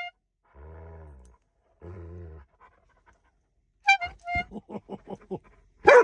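An Airedale terrier growls twice, each growl low and drawn out. About four seconds in, a chrome bulb bike horn honks several quick times, followed by a run of rapid huffs from the dog and a sharp bark at the end.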